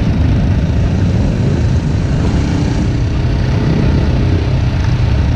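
Motorcycles running at low speed in a slow procession, heard from one of the bikes: a steady low engine rumble.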